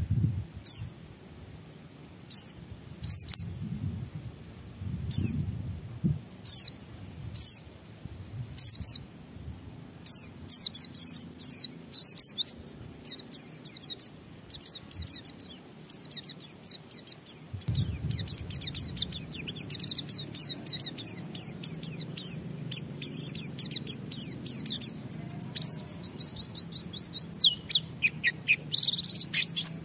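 White-eye (pleci) singing high and sharp: single chirps about once a second at first, building from about ten seconds in into fast, nearly continuous twittering, the 'ngalas' song that keepers play to set other white-eyes singing.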